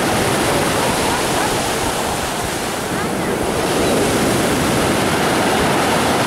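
Heavy sea surf breaking and washing up over a pebble beach: a loud, steady rush of water.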